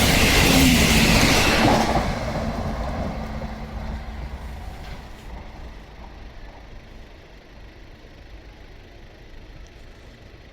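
A Class 170 Turbostar diesel multiple unit running through the station without stopping. It is loud for the first two seconds, then fades away over the next few seconds as it draws off.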